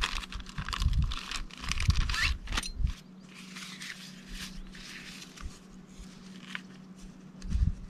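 Rustling and crinkling as a tent repair kit is rummaged through and its fabric patches and netting are handled, busiest in the first three seconds and then quieter.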